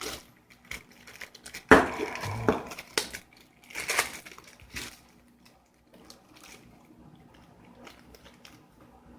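Sealed plastic bag crinkling and crackling as it is handled and pulled open. The sharp crackles are strongest over the first five seconds, then fade to faint rustling.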